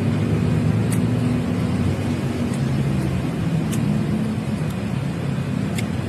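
Steady low rumble of a motor vehicle engine running, with a few faint clicks.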